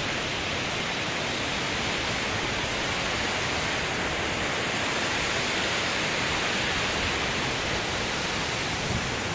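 Large mountain waterfall, its water cascading down a rocky gorge: a steady rush of falling water.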